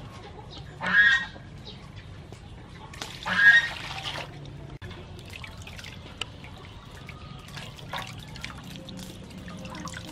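Two loud honking calls, about two and a half seconds apart. After them, hands swish and squeeze clam meat in a basin of water, with small splashes and drips.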